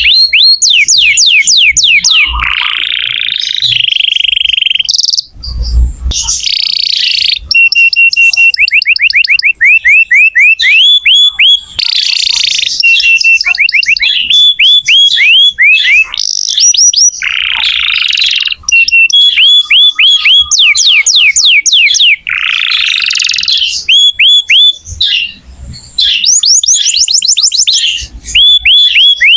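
Domestic canary singing a long, loud song of rapid trills: runs of quick repeated sweeping notes that switch to a new trill every second or two, with some harsher, buzzier phrases between them.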